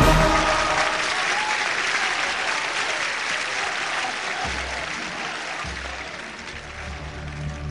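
Crowd applauding and slowly dying away; a low, soft music tone enters about halfway through.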